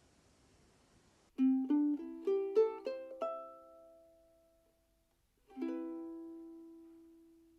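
Sumi UK-DT soprano ukulele, a mahogany-bodied replica of a 1910s Martin Style-1 Ditson strung with fluorocarbon strings, playing a quick rising run of single plucked notes about a second in. A final chord follows near the end and is left to ring out and fade.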